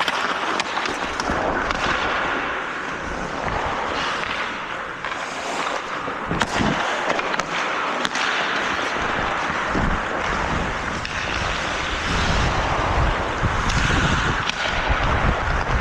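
Ice hockey play: skate blades scraping and carving on the ice, with wind rumbling on the microphone and a few sharp clicks.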